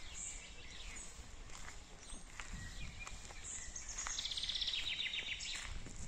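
Wild songbirds singing in woodland, with short high chirps and a fast trill of rapidly repeated notes lasting about a second, starting about four seconds in, over a steady low rumble.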